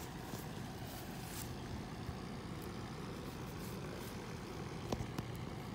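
Steady low engine rumble in the background, with a couple of sharp clicks about five seconds in.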